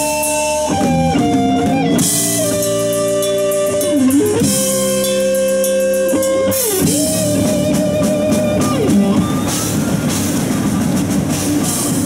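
Live rock band playing electric guitars, bass guitar and a drum kit with cymbals. The guitars hold long notes, some of which slide in pitch.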